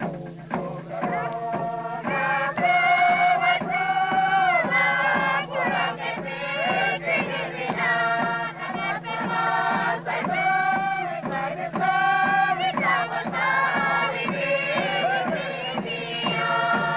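Traditional Papua New Guinean group singing: several voices chant together over a steady beat of about two strokes a second.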